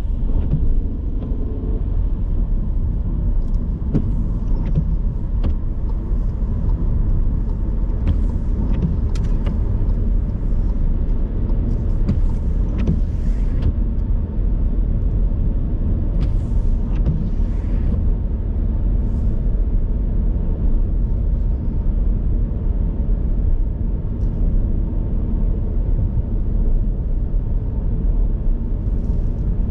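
Steady low rumble of car traffic or a moving car, with a few brief, faint higher-pitched sounds scattered through it; no single loud impact stands out.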